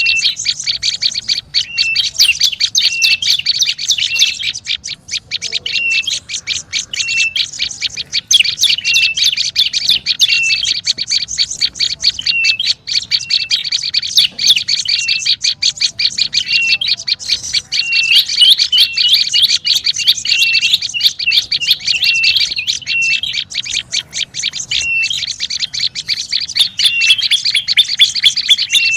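Prenjak lumut bird lure call: a busy, unbroken chatter of fast, high ticking notes, with a short higher note repeating about once a second.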